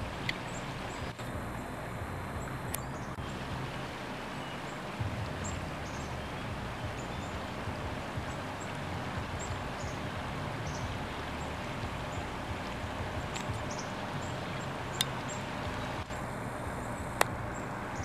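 Steady rush of a swollen stream flowing over snags and riffles, with faint high bird chirps here and there. Two sharp clicks stand out near the end.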